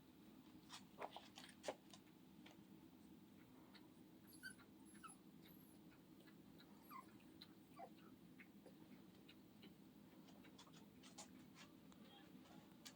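Five-week-old Scottish Terrier puppies faintly whimpering now and then, with scattered small clicks and taps.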